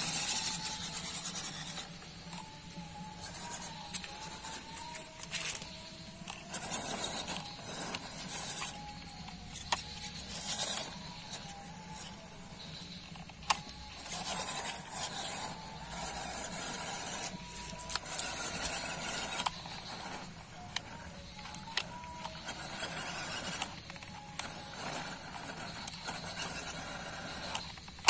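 Electric motor and gearbox of an MN99S scale RC crawler whining, the pitch rising and falling with the throttle as the truck drives through shallow muddy water, with scattered sharp clicks and knocks.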